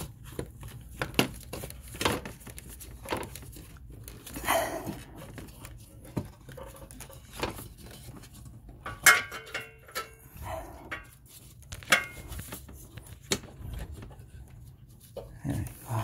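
Irregular clicks, knocks and scrapes of plastic and metal parts being handled and pushed into place in a Honda Odyssey engine bay, with louder knocks about nine and twelve seconds in.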